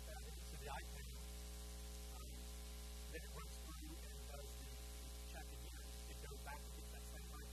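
Steady electrical mains hum with a stack of buzzing overtones and a hiss. Faint short blips come and go over it.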